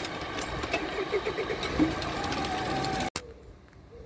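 A train running past at close range: mechanical clatter and clicks with steady whining tones over it, cut off abruptly about three seconds in.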